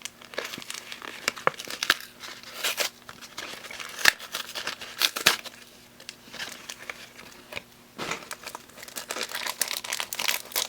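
Foil wrapper of a Pokémon trading-card booster pack crinkling as it is handled, with irregular small clicks and rustles from the cards. The crinkling is densest near the end.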